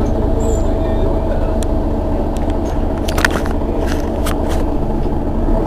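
Mercedes-Benz Citaro city bus's rear-mounted diesel engine idling steadily while the bus stands still, with a few short sharp clicks between about one and a half and four and a half seconds in.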